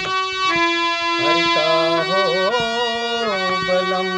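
Harmonium playing a melodic interlude: reed notes moving in steps over a held low drone note.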